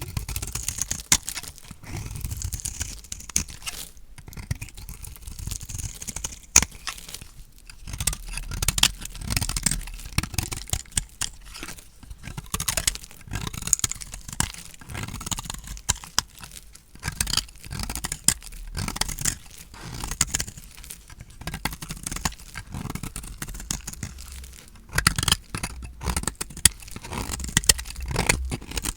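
Dry, painted bar soap being cut with a blade, crunching and crackling as it breaks into pieces, with many quick irregular snaps and scrapes.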